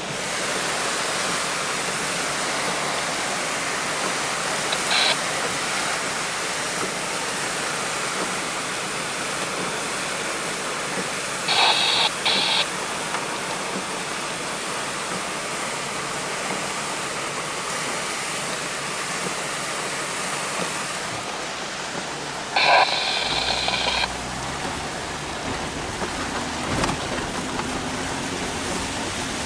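Steady rushing noise of a swollen, muddy river in flood, broken by a few short louder bursts. Near the end a low vehicle rumble comes in.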